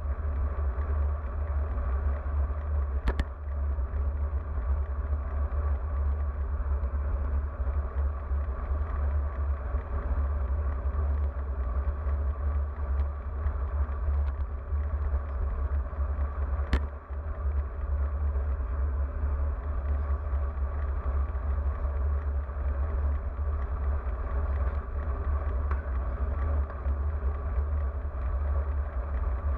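Steady wind rumble on the microphone of a camera mounted on a moving road bike, over the hiss of the tyres rolling on asphalt. Two short sharp knocks stand out, about three seconds in and about seventeen seconds in.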